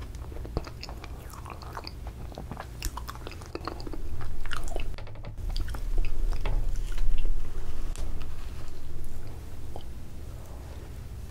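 Close-miked eating sounds: a plastic spoon scraping ice cream from a paper tub, and wet mouth sounds of chewing it, with many small sharp clicks and crackles. Louder stretches come about four seconds in and again from about six to nine seconds.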